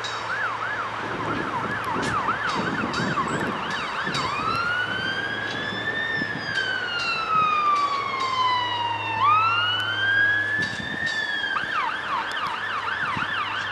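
An emergency vehicle siren sounds on a fast yelp, changes about four seconds in to two long, slow wails that rise and then fall, and goes back to the fast yelp near the end. Underneath it, a freight train's wagons roll past.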